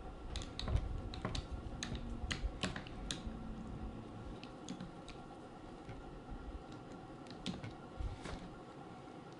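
Phillips screwdriver undoing the small screws at the top of a netbook's screen bezel: scattered small plastic-and-metal clicks and ticks, quicker in the first few seconds and sparser after.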